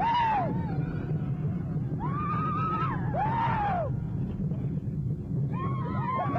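El Toro wooden roller coaster train rumbling steadily along its wooden track at speed. Riders' screams and whoops rise and fall over the rumble about four times, the last one running on to the end.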